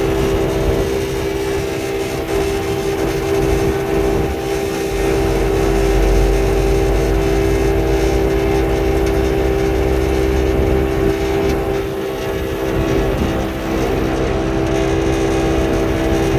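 A parked vehicle's engine idling with a steady drone. A heavier low rumble from about five to eleven seconds in is a vehicle passing on the wet road.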